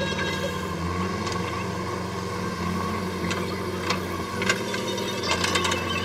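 JCB 3DX backhoe loader's diesel engine running steadily under hydraulic load as the backhoe arm swings and digs, its note shifting about a second in. Several sharp metallic clanks from the arm and bucket come in the second half.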